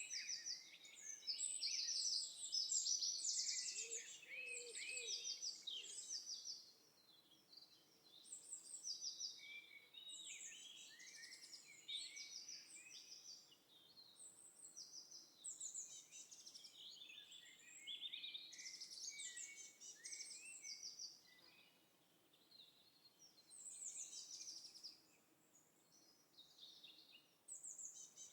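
Several small songbirds chirping and trilling in overlapping bursts of short, high notes, with brief lulls between.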